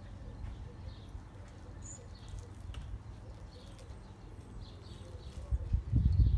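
Garden birds chirping again and again in short, high notes, with faint lower cooing notes. A low rumble on the microphone grows louder near the end.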